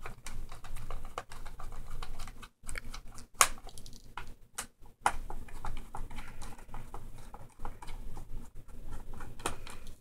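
Precision Phillips screwdriver turning out the screws of a laptop's memory-compartment door: a run of small, irregular clicks and scrapes of the tool in the screw heads, with a couple of sharper clicks about three and a half and five seconds in.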